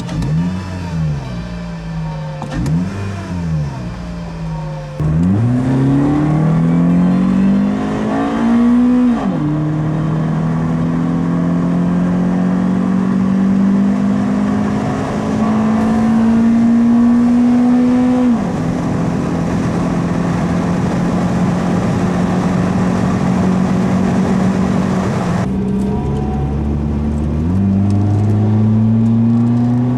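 Toyota Celica GT-S's 2ZZ-GE four-cylinder, breathing through an Injen short ram intake and TRD exhaust, revved in a few quick blips, then pulling through the gears: the engine note climbs steadily and drops sharply at each upshift, about nine, eighteen and twenty-six seconds in.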